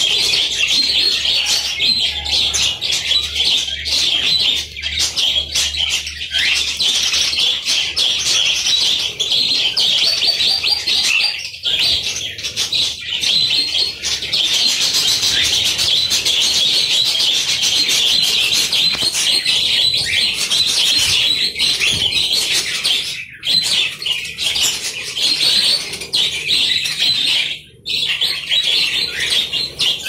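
A colony of budgerigars chattering and warbling together, a dense, continuous mass of high chirps with a few brief lulls.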